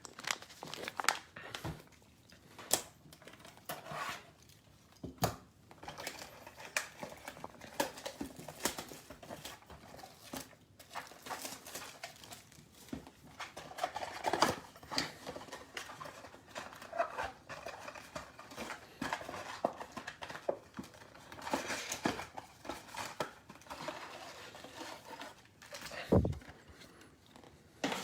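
Plastic wrap and cardboard packaging crinkling and tearing as a trading-card mega box is opened and its packs pulled out, with irregular rustles and small clicks, and one low thump near the end.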